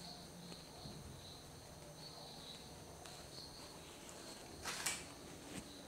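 Quiet background with a faint, pulsing high chirp like an insect such as a cricket, and one brief soft rustle or scrape near the end.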